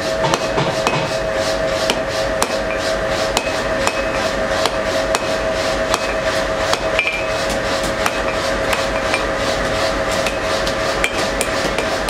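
Hand hammer striking a red-hot twisted steel bar on an anvil in a steady run of blows, about three a second, over a steady two-note hum.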